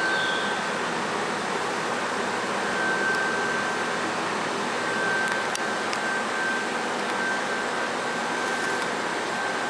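Steady hiss and hum of a parked electric train's on-board equipment, with a thin high whine that holds throughout and grows a little stronger at times, and a few faint ticks.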